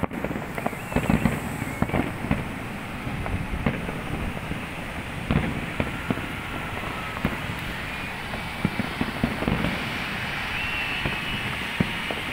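Distant fireworks bursting: an irregular string of bangs and crackles over a steady background haze, with a cluster of sharper bangs about a second in.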